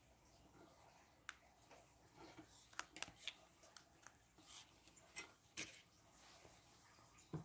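Near silence broken by faint scattered ticks and light rustles: coarse salt crystals sprinkled onto damp watercolor paper, and hands handling the paper, with a small cluster of ticks a couple of seconds in.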